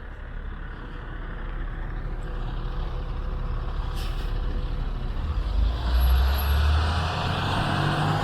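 A heavy road vehicle's engine rumbles nearby in street traffic. It grows louder and is loudest about six seconds in, with a rush of noise as it draws close.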